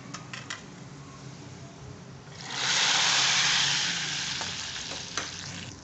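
Hot ghee tempering (baghar) with fried onions and curry leaves poured into cooked dal: a sudden loud sizzle about two seconds in that fades away over the next few seconds. A few light clicks come just before it and one near the end.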